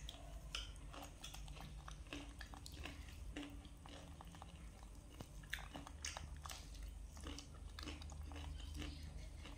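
Faint, scattered crunching and chewing as a toddler and a young macaque bite into crispy fried banana cakes.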